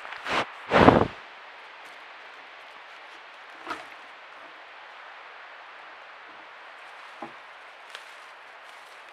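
Two loud, short noises within the first second, right at the trail camera's microphone, as an elk passes close against the camera. A steady faint hiss follows, with a few faint clicks.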